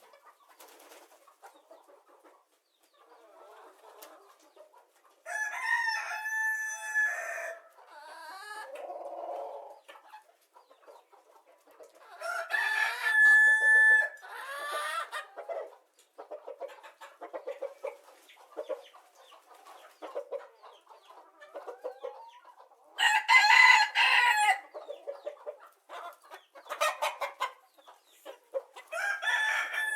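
A rooster crowing four times, each crow about two seconds long, with chickens clucking in short bursts between the crows.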